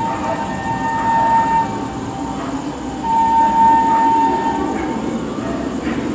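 Indian Railways WAP-4 electric locomotive approaching at speed: its horn holds one steady note that ends about a second and a half in, then sounds a second long blast about three seconds in, over the rumble of the oncoming train.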